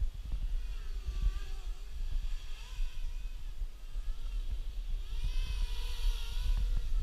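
QAV250-clone racing quadcopter's brushless motors whining, the pitch rising and falling with the throttle, loudest near the end, over heavy low rumble of wind on the microphone.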